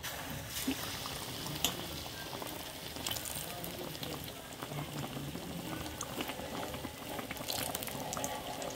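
Besan-battered aloo tikki deep-frying in hot oil in a kadhai: a steady sizzling hiss with scattered crackles and a few sharper pops, starting as the patty goes into the oil.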